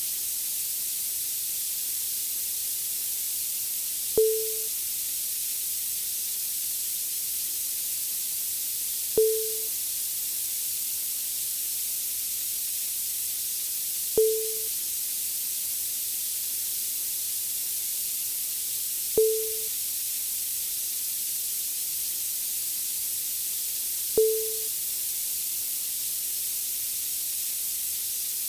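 CRT television flyback noise: a steady high-pitched hiss. A short low blip with a click repeats every five seconds.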